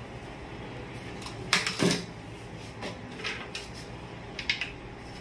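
Kitchenware knocking on a stone countertop and a ceramic plate: two loud sharp knocks about one and a half seconds in, then a few fainter clicks, over a steady low hum.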